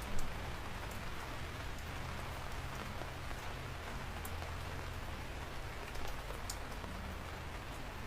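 Steady rain falling, an even hiss with scattered individual drop ticks, over a low steady hum.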